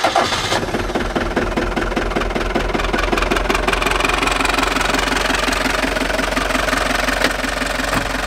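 Fiat Ducato motorhome's diesel engine idling just after being started, with a steady, even clatter. It is a little louder for the first half second, then settles.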